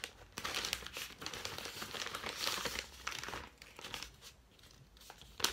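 Plastic and paper packaging crinkling and rustling as it is handled and unwrapped, busiest for the first three seconds or so and quieter after, with a sharp tap near the end.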